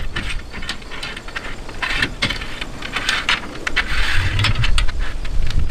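Metal crossbar track being slid and worked into the top rail of a metal truck bed rack: repeated scraping and sharp clicking of metal on metal, with the longest scrape a little past the middle.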